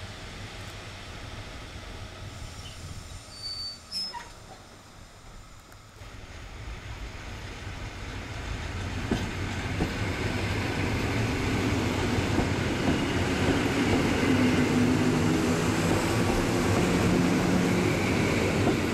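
EN57 electric multiple unit trains at a station. It starts fairly quiet, with a few brief high squeaks about three to four seconds in. From about seven seconds a train passes close by, growing louder, its motors humming and its wheels running on the rails, and it stays loud.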